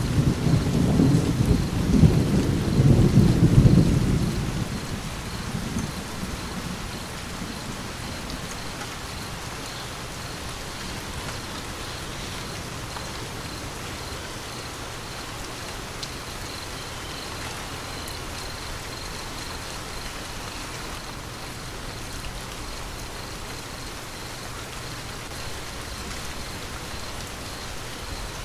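Steady rain falling, with a roll of thunder rumbling loudly at the start and fading away by about six seconds in, leaving only the even patter of rain.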